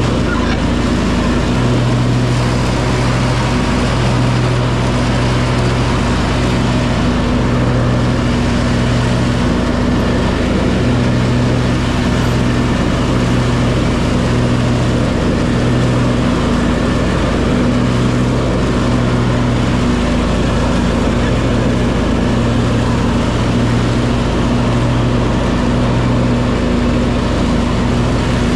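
Cub Cadet 2554 garden tractor's engine running steadily at mowing speed as it cuts grass, a loud, even drone with a slight wavering in its hum about once a second.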